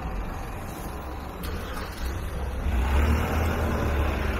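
Street traffic: a motor vehicle's engine rumble and tyre noise, growing louder about two-thirds of the way in as it draws near.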